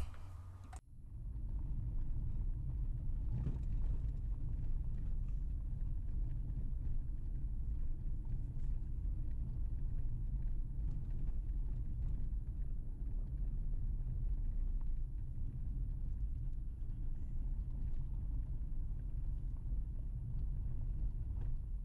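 Car driving on a dirt road, heard from inside the cabin: a steady low rumble of engine and tyres on the unpaved surface, with occasional faint ticks. It starts about a second in.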